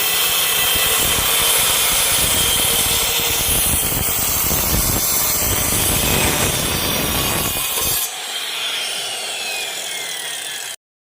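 Circular saw cutting through plywood, a loud steady buzzing. About eight seconds in the cut ends and the saw winds down with a falling whine, then the sound cuts off suddenly.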